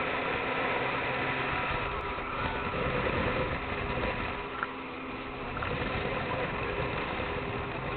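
Boat engine running steadily under way, a constant drone over a rush of wind and water noise.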